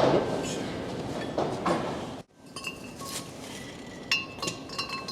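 Steel tools and parts clinking and knocking against each other, short metallic strikes with a brief ringing tone; the sound cuts off abruptly a little over two seconds in, then the clinks resume.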